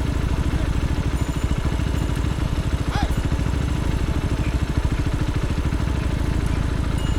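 Motorcycle engine running steadily, its firing pulses even.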